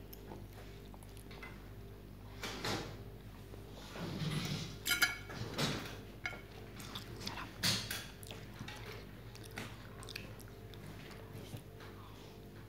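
Close-up chewing and mouth noises of a person eating Samyang spicy instant noodles and french fries, with scattered sharp wet clicks and smacks. A faint steady hum sits underneath.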